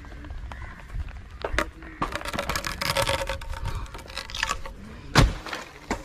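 Rustling and crackling with scattered small knocks as the climber moves among coconut palm fronds, then one sharp, loud thump about five seconds in.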